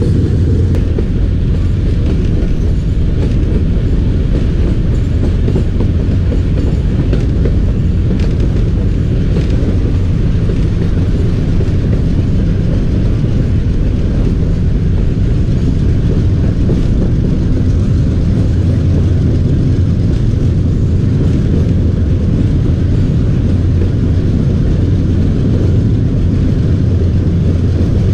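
Passenger train running on the rails, heard from an open coach window as a steady, loud low rumble of wheels and coach.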